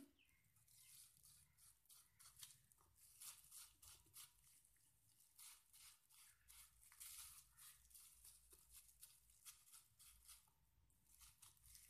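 Faint crinkling and rustling of a bunched plastic bag dabbed and pressed over a glued decoupage napkin to smooth it down, in many short, irregular strokes.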